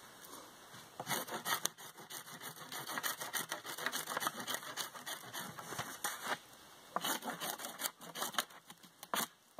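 Knife blade scraping bark off a black spruce pole in many quick, short strokes, with a brief pause a little past the middle before the strokes resume.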